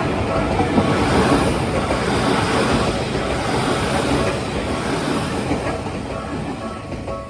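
Tokyu Oimachi Line electric train passing close through a level crossing: a loud, steady rush of wheels on rail and running gear that eases off near the end, drowning out the crossing bell.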